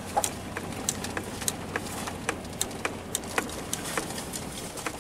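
A vehicle driving slowly on a dirt and gravel road, heard from inside the cab: a steady rumble of road noise with irregular sharp clicks and ticks, about three or four a second, from gravel and the rough road surface.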